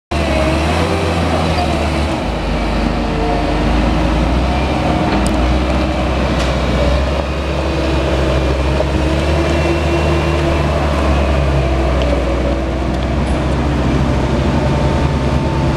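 Diesel engine of a Manitou MLT-X 625 telehandler running loudly and steadily, its pitch rising and falling a little.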